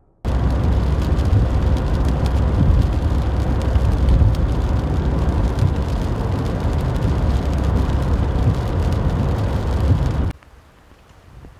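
Car driving through heavy rain, heard from inside the cabin: a loud, steady rumble of road and engine noise with rain pattering on the windshield and roof. It cuts off suddenly about ten seconds in.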